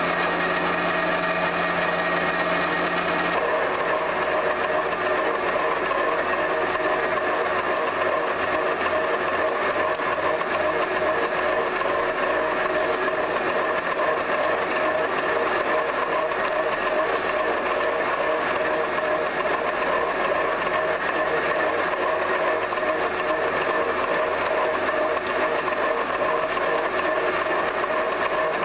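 Clay-processing machinery, a clay mixer and a pug mill, running steadily with a continuous mechanical hum made of several steady tones. A few of the tones stop about three seconds in, and the rest runs on unchanged.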